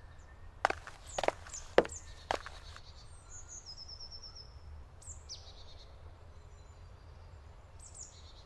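Woodland ambience: small birds calling with quick falling chirps and a short rapid trill, over a low steady rumble of wind. Four sharp taps come in the first two and a half seconds.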